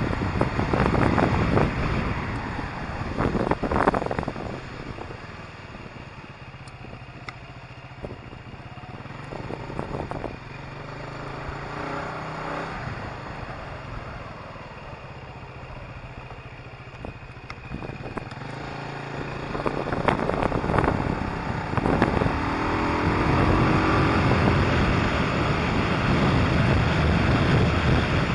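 Motorcycle engine running on the move, with wind buffeting the microphone. The wind noise is loud at first, drops away for a quieter stretch where the engine's low steady note comes through, then builds again in the later part as the engine note rises with acceleration.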